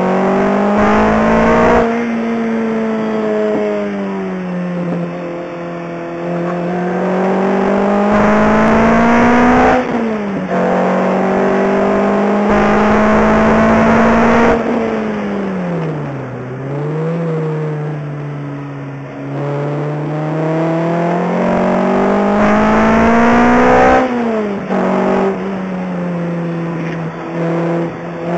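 Lotus Exige engine heard from inside the cabin while lapping a track. The engine note climbs steadily under acceleration and drops suddenly twice, about a third of the way in and again near the end. In the middle it falls away more slowly, with one quick blip.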